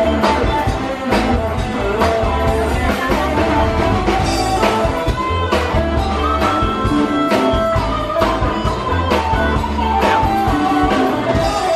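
Rock-style music with guitar, bass and a steady drum beat.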